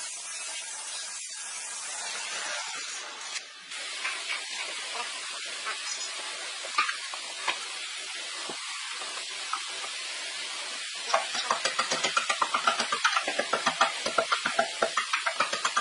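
Steady hiss with a few light wooden knocks, then, about two-thirds of the way through, a claw hammer striking the round wooden bottom inside a wooden flower pot in quick, even blows, about two to three a second.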